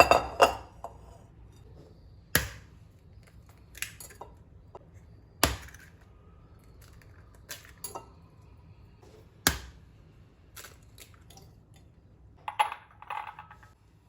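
Kitchen utensils and containers being handled: a series of separate sharp knocks and clatters, one every second or two, with a short cluster near the end.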